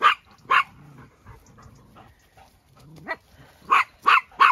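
Dog barking in short sharp barks while herding sheep: two barks at the start, then a quick run of three or four near the end.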